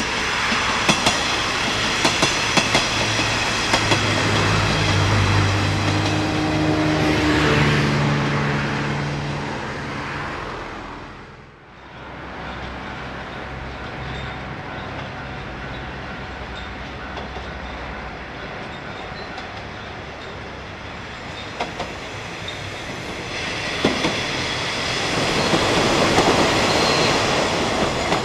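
A JNR-style KiHa 20 series diesel railcar train passes with its DMH17 diesel engine running, and its wheels click over the rail joints. The engine note climbs over the first several seconds. The sound drops away briefly about a third of the way through. The train then approaches again and runs close by with more wheel clicks.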